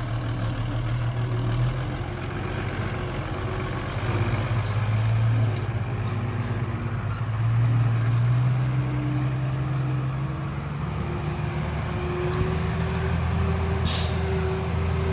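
Heavy diesel engine of construction machinery running under load, its revs rising and falling several times and building toward the end. A brief hiss near the end.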